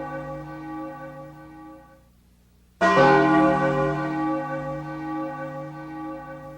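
A large bell tolling: the ringing of one stroke dies away, and after a brief gap a new stroke sounds about three seconds in and rings on, slowly fading.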